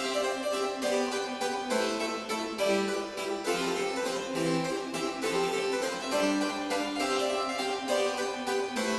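Baroque harpsichord background music, a busy run of quick plucked notes.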